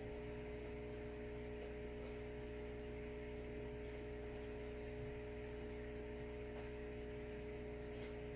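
Steady low hum made of several fixed tones, unchanged throughout, with a few faint soft clicks.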